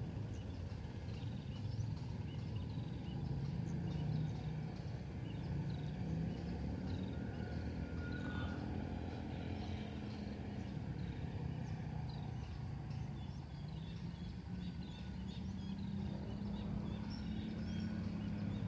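Outdoor rural ambience: a low steady hum with scattered short, high chirps throughout and one brief rising whistle about eight seconds in.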